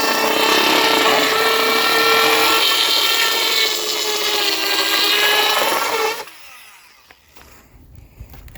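Makita SH02 cordless mini circular saw running and cutting open a box. Its motor whine holds steady and sags in pitch under load partway through. It stops suddenly about six seconds in, followed by a few faint knocks.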